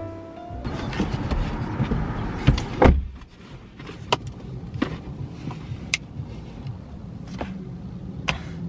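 Someone settling into a car: rustling and knocks, then a car door shutting with a heavy thud about three seconds in. After that, scattered clicks and handling noises inside the car cabin over a low steady rumble.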